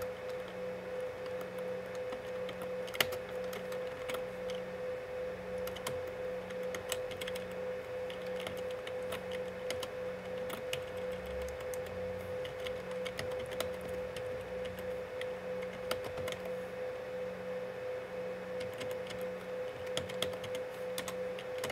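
Typing on a computer keyboard: sparse, irregular keystroke clicks over a steady electrical hum with a low pulsing drone beneath it.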